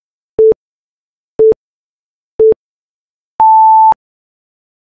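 Electronic countdown timer beeps: three short low beeps a second apart, then one longer, higher beep as the count reaches zero, signalling that time is up.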